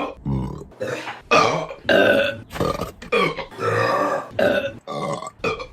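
A woman belching over and over, a fast string of short pitched burps about two a second, one of them held longer about four seconds in.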